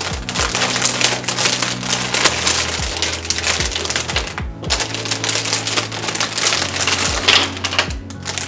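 Packaging crinkling and rustling as it is torn open and handled, a dense crackle of small clicks with a brief pause about halfway through.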